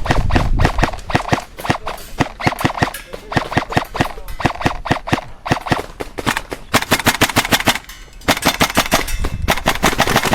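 Airsoft guns firing: shots in quick succession, then from about seven seconds in long rapid-fire bursts with a short break near eight seconds.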